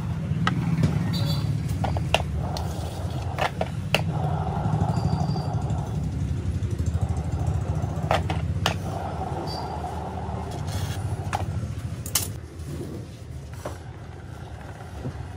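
A steady low motor hum runs throughout, with scattered sharp clicks and taps as a palette knife and scraper work the cake on its turntable.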